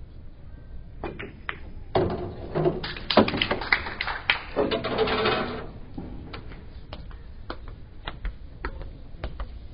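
Pool balls clicking on a shot: the cue strikes, balls collide, and a pocketed ball knocks and rolls away in a dense run of clicks lasting a few seconds, followed by scattered single clicks.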